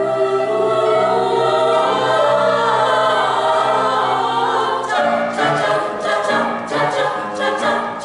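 Choir singing held, layered chords. About five seconds in, the chords break into shorter notes, and sharp clicks start sounding among them.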